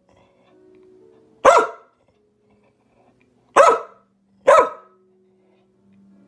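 A dog barking three times, loud short single barks about a second and a half in, then twice close together past the middle.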